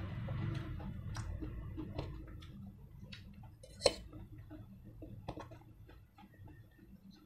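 Close-miked eating noises: chewing and mouth sounds of noodles and fried rice, with scattered light clicks of metal forks on steel plates and one sharp clink just under four seconds in.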